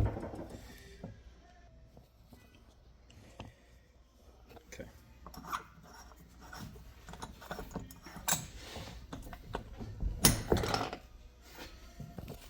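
Scattered metallic clicks, scrapes and knocks of hand tools forcing apart a sterilizer safety pressure valve held in a vise, with a louder clatter near the end.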